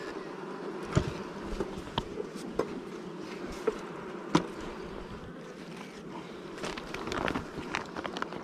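Honeybees buzzing in a steady hum around an open hive, with a few sharp clicks and taps of a metal hive tool on the wooden frame top-bars, and a rustle of a plastic cover sheet being handled near the end.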